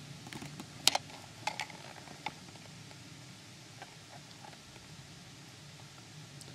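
A few sharp clicks and taps, the loudest about a second in and several more within the next second and a half, over a low steady background noise.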